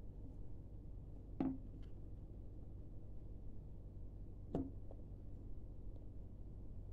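Two light knocks on a wooden tabletop about three seconds apart as hands handle a smartphone lying on it, over a steady low hum.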